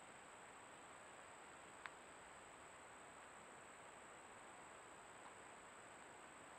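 Near silence: the faint steady hiss of a trail camera's recording, with a thin high whine held throughout and one faint click about two seconds in.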